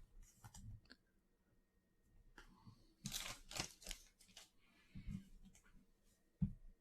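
A foil trading-card pack being torn open and its wrapper crinkled: a few short, faint tearing and crinkling bursts, the loudest about three seconds in.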